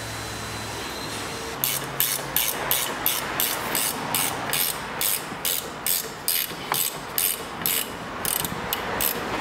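Hand ratchet wrench clicking in quick regular strokes, about three a second, starting a second and a half in, as a suspension control-arm bolt is run in.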